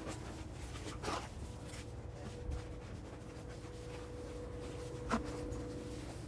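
Faint steady low hum with a couple of soft knocks or clicks, one about a second in and one near the end.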